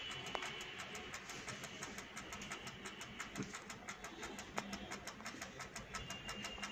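Commercial four-slice toaster's mechanical timer ticking evenly, about five ticks a second, during a timed toasting cycle, over a faint steady hum.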